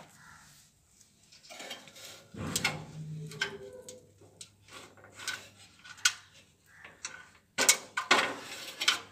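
Scattered small clicks and rattles of wire connectors and metal parts being handled and pulled apart as the leads come off a gas geyser's lighter (ignition) kit, with a louder cluster of clicks near the end. A brief low murmur of a voice comes about two and a half seconds in.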